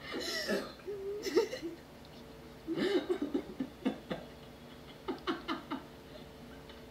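A person laughing in short voiced bursts, in three spells with pauses between them.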